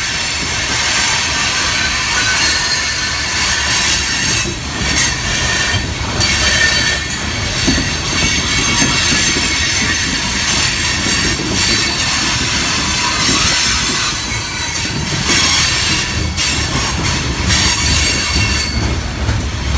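Loaded coal hopper cars rolling past, their steel wheels squealing against the rail in a curve: several high, steady squeal tones over the low rumble of the heavy cars.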